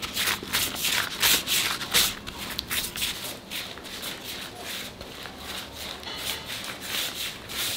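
Hands rolling a rope of fuchka (pani puri) dough back and forth on a cloth: quick, repeated rubbing swishes, a few strokes a second, a little louder in the first couple of seconds.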